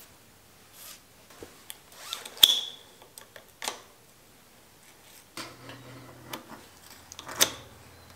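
Bicycle brake cable housing and steel inner cable being handled and fed into a brake lever's barrel adjuster: scattered small clicks, rubs and rustles, with a sharp click about two and a half seconds in and another near the end.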